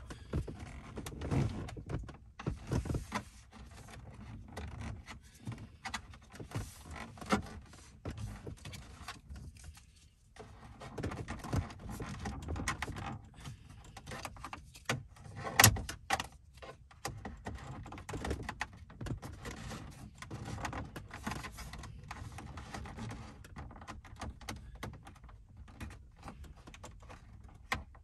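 Irregular clicks, taps and rustling of hands pressing thin EL wire into the gaps of a car's plastic dashboard trim, with one sharp, loud click about halfway through.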